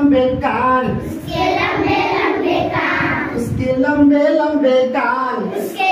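A group of young children singing a Hindi children's action song together in unison.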